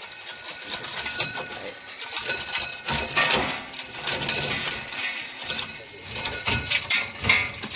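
Mobile phones being shredded by a machine, with small metal and plastic fragments clattering and rattling continuously into a clear plastic collection bin.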